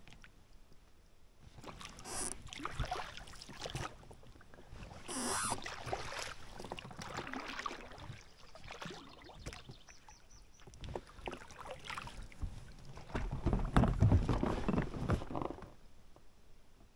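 Rowing a small boat: oars dipping and pulling through the water in uneven strokes every second or two, with splashing, strongest near the end.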